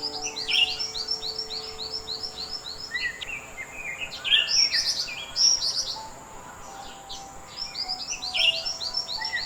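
Blue-winged leafbird singing: fast runs of repeated, sharp, falling whistles, about six a second, with a lower, more varied warbling phrase in the middle, and the runs starting again near the end.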